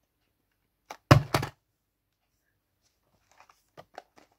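Hands handling a toy's plastic blister pack on its card backing: a loud knocking rustle about a second in, then a few light plastic clicks near the end.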